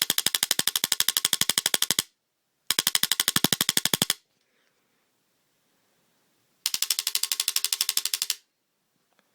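Spyder MR2 paintball gun firing in fully automatic mode, in three rapid bursts of about a dozen shots a second; the longest lasts about two seconds. The full-auto mode works now that two prongs on the board have been bridged.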